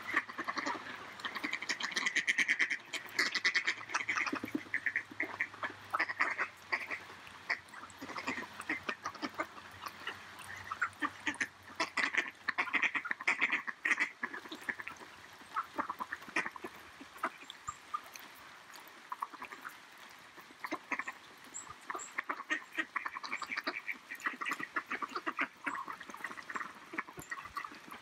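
A flock of mallard ducks feeding on corn, quacking and chattering, with a steady patter of quick clicks from their bills pecking at the kernels on the wet ground.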